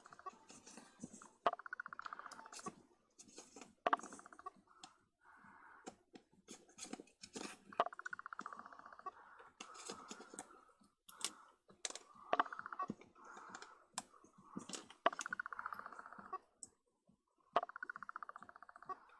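Sharp clicks and a run of short gritty rasps, each about a second long, from metal parts of a Vivitar Series 1 70-210mm zoom lens being worked with a tool: a stuck threaded part being forced loose.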